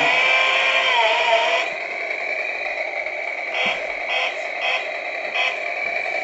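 Toy chainsaw running its motor sound, a steady buzzing drone with a wavering pitch that drops in level about two seconds in and carries on evenly.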